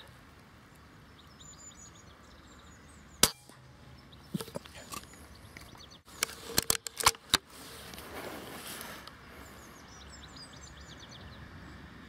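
Weihrauch HW100 pre-charged pneumatic air rifle firing once, a single sharp crack about three seconds in, followed by several lighter clicks around four and a half and seven seconds. Birds chirp faintly over a steady outdoor hiss.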